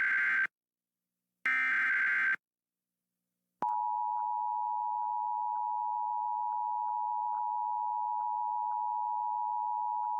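Emergency Alert System tones for a fire warning: the last two short screechy data bursts of the SAME header, ending about two seconds in, then after a gap the steady two-tone EAS attention signal (853 and 960 Hz), starting about three and a half seconds in.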